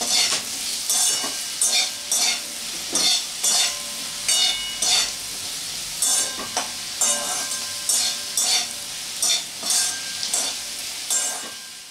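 Slotted metal spatula scraping and stirring spiced diced potatoes frying in mustard oil in a metal kadai, in regular strokes about twice a second over a steady sizzle. The sound fades out near the end.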